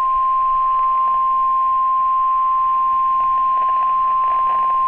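NOAA Weather Radio warning alarm tone, the 1050 Hz alert, held as one loud, steady, unbroken beep. It is the signal that a warning is about to be read, here a severe thunderstorm warning.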